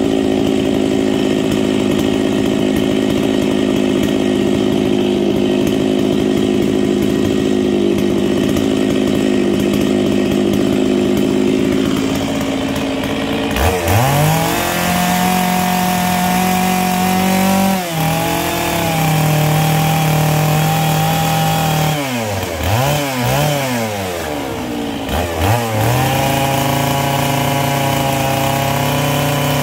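Stihl MS 660 two-stroke chainsaw idling, then throttled up about 14 seconds in to a high, steady howl. It bogs slightly in pitch as it bites into the paulownia wood. It is revved up and down a few times, then runs at full throttle in the cut again near the end.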